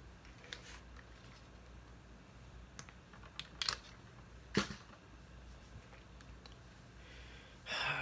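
A few scattered light clicks and taps, irregular and spaced over several seconds, over a low steady room hum, with a short breathy rush near the end.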